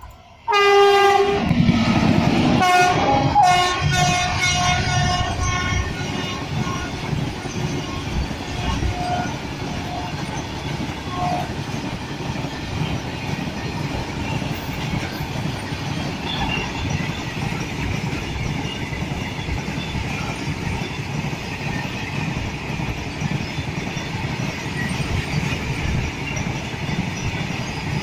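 WAG-9HC electric locomotive's horn sounding a string of loud blasts that change pitch over the first five or six seconds, with a few short faint notes a little later. Under it, a long freight train of hopper wagons rolls past with a steady rumble and clatter of wheels on rail.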